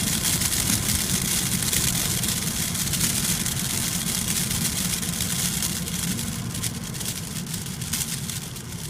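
The plastic window of a paper envelope rattling and flapping in the wind: a fast, continuous crackling rattle over a low wind rumble, with sharper clicks near the end.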